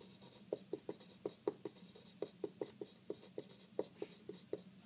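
Handwriting on paper: a run of short, light scratching strokes, about five a second, as a word is written out by hand.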